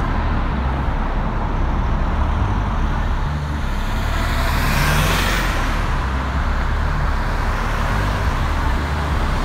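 Road traffic at a busy city roundabout: a steady rush of cars and vans driving past, with one vehicle passing close and swelling louder about five seconds in.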